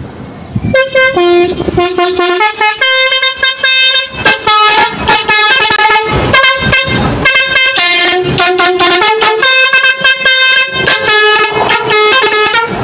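Basuri truck air horn, a set of trumpets sounded in turn to play a tune: a quick run of loud horn notes at shifting pitches, starting under a second in. It plays a little lame, because one of its switches is burnt out.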